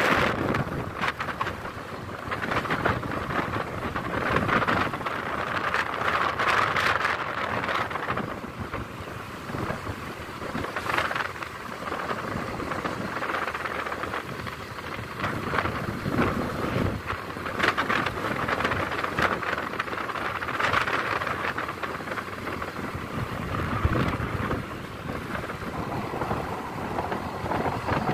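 Wind buffeting the microphone of a riding motor scooter, gusting up and down, with the scooter's running and road noise underneath.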